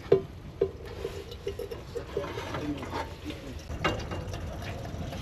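Camp coffee gear being handled: two sharp knocks close together at the start, then scattered clicks and clinks, with a brief faint hum between them.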